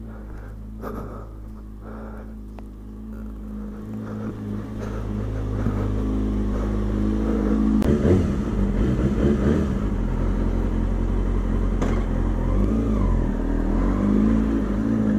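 2003 Kawasaki ZX-6R 636 inline-four engine idling steadily. It grows louder over the first half as the rider comes up to the bike, with a sharp click about eight seconds in.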